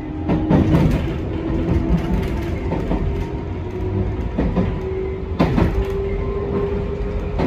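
JR West 221 series electric train running, heard from inside the front car: a steady rumble with a motor hum that rises slightly in pitch, and wheels knocking over rail joints several times at uneven intervals.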